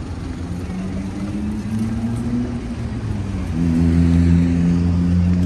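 Motor vehicle engine running close by, its pitch rising slightly, then louder and steady from a little past halfway, over general street noise.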